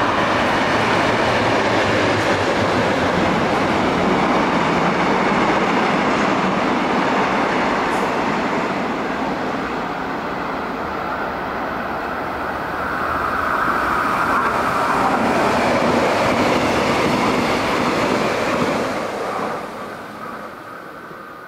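Train running on the rails: a steady rumble and clatter of wheels on track that falls away near the end.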